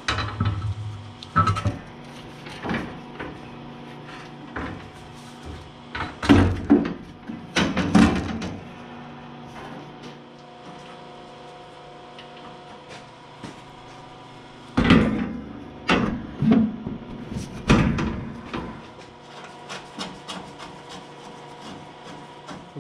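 Sheet-metal side panels of a compact tractor's hood being handled and fitted, giving irregular knocks and clanks that bunch together around a third of the way in and again past the middle, over a steady hum.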